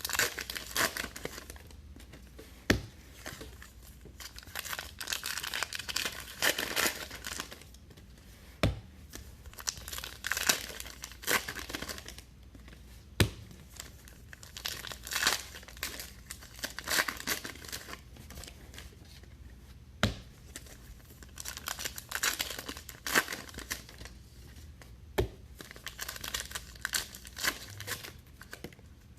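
Trading card pack wrappers being torn open and crinkled, in repeated clusters of rustling and crackling, with five sharp taps spread through.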